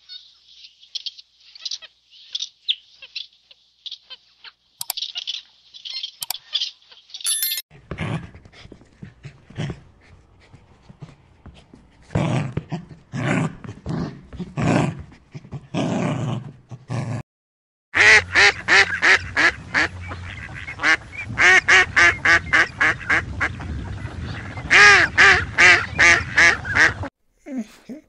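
A series of animal calls in three stretches. First come high chirping calls, then single low calls about a second apart, then, from about eighteen seconds in, a fast run of loud calls repeated several times a second.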